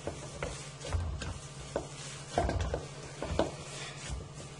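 A hand kneading and pressing crumbly paneer dough in a stainless steel bowl: irregular dull thumps and light scrapes against the bowl, about two a second.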